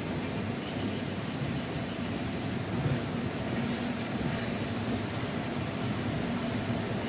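Cheran Express passenger train running along the track, a steady noise of the moving train with no pauses or changes.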